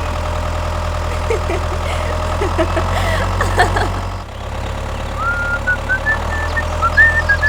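An engine idling steadily with an even, low knock, typical of a tractor, dipping briefly about halfway through. Short high chirping whistles sound over it in the second half.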